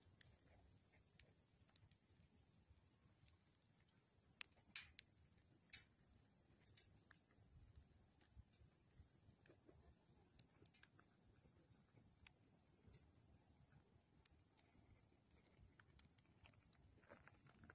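Near silence: a faint high chirp repeats about three times a second, and a few short sharp clicks come about four to six seconds in.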